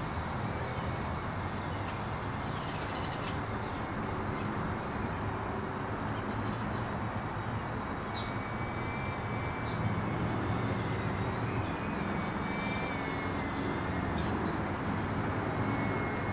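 iFlight CineBee 75 HD micro quadcopter flying, its brushless motors and ducted props giving a steady buzzing whine over a rush of noise, the pitch wavering up and down as the throttle changes.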